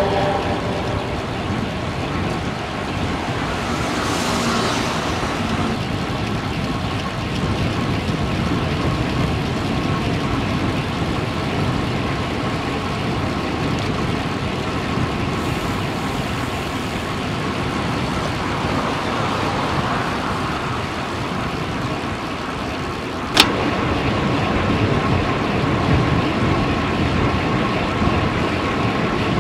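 Steady road traffic noise from cars on a highway, with a single sharp click about three quarters of the way through.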